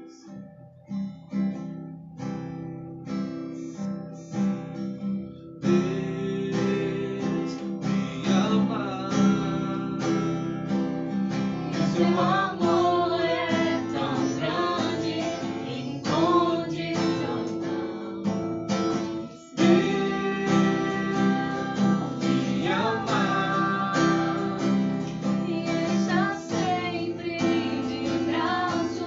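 Acoustic guitar strummed on its own at first, growing fuller about six seconds in, when voices start singing a worship song over it; both break off briefly near the middle and then carry on.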